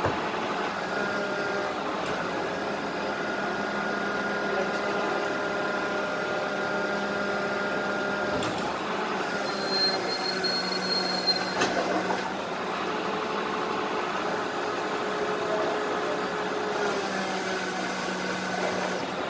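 Rear-loader garbage compactor truck running stationary, a steady engine drone with held whining tones that shift in pitch a few times. Knocks and clatter about halfway through as a wheelie bin and rubbish are tipped into the rear hopper.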